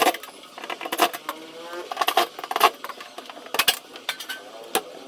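Irregular knocks and rattling clatter, several a second and uneven in strength, from a noisy LG direct-drive front-load washing machine.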